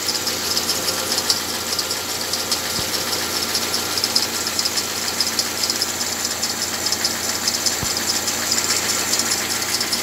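Car engine idling with its flat alternator drive belt giving a steady high-pitched whistle. The noise comes from the belt itself, which the owner treats as a sign that it needs replacing.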